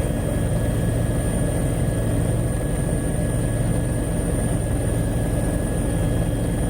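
A steady engine drone with a thin, high, steady whine over it, unbroken until it cuts off at the end.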